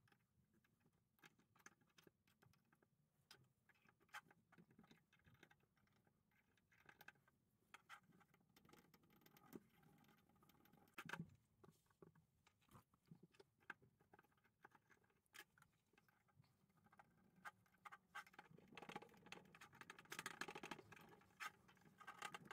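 Faint, scattered small metal clicks and scrapes of a screwdriver and gloved hands working the rusted pawl mechanism of a ratchet wrench head, with a denser, louder stretch of rubbing noise near the end.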